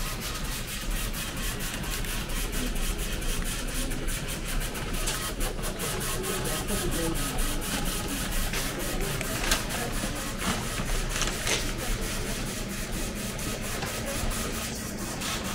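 Airliner cabin at the gate: a steady ventilation hum with passengers' voices, and a fast, even clicking throughout.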